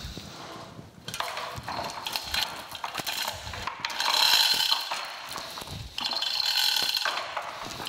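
Chain hoist being worked to lower a heavy cast-iron vise body, its chain rattling and its mechanism clicking in three runs.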